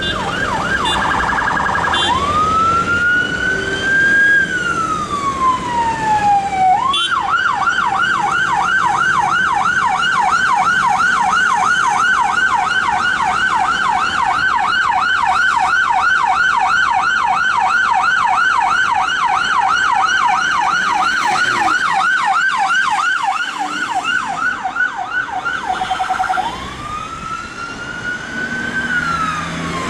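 UK police van siren cycling through its tones: a brief fast warble, a slow rising and falling wail, then a long fast yelp at about four sweeps a second, going back to the wail near the end. Road traffic runs faintly beneath.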